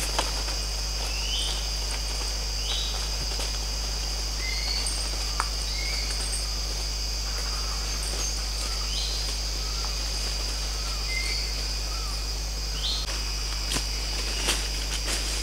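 Tropical forest insects droning steadily on one high note, with short bird calls breaking in every few seconds. A few faint clicks sound among them.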